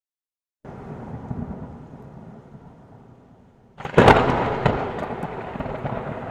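Thunder: a low rumble that starts suddenly, then a loud sharp crack about four seconds in, followed by a fading rumble.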